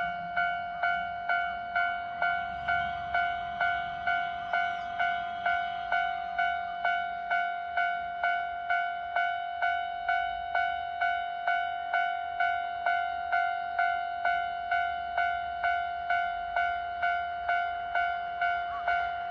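Japanese level-crossing warning bell ringing at an even pace of about two strikes a second: the signal that a train is approaching.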